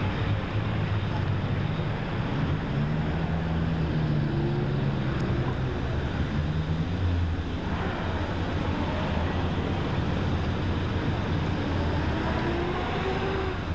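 A large engine running steadily with a low hum, its pitch drifting up and down now and then.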